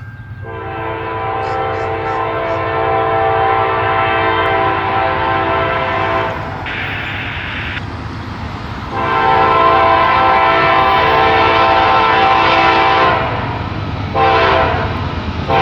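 Lead locomotive's multi-chime air horn sounding the grade-crossing signal: two long blasts, a short one, and a final long one starting at the very end, over the steady rumble of the approaching freight train.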